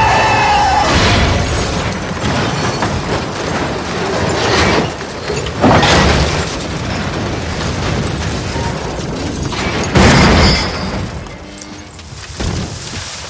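A car crashing and tumbling, with heavy impacts about five and a half and ten seconds in and debris scattering, over a film music score.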